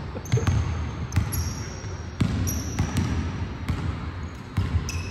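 Basketballs bouncing on a hardwood gym floor, irregular thuds about two a second that ring around the hall, with short high sneaker squeaks on the floor between them.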